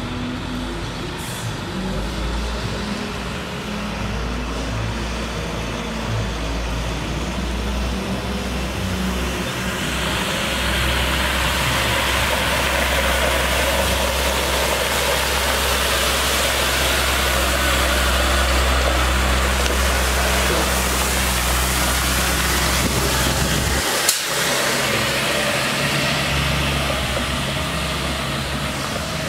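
Caterpillar C7 diesel engine of a Ford F750 water truck running steadily in first gear. About a third of the way in, a steady hiss of water spraying from the PTO-pump spray heads rises and carries on. A single sharp click comes near the end.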